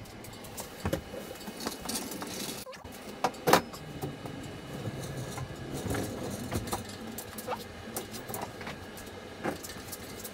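Steel wheeled parts rack being rolled out of a homemade powder-coating oven: casters rumbling over the concrete floor, with scattered metal clanks and knocks, the loudest about three and a half seconds in.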